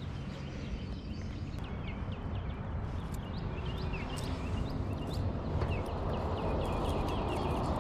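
Small birds chirping: many short high chirps, scattered irregularly over a steady low rushing background that grows slightly louder toward the end.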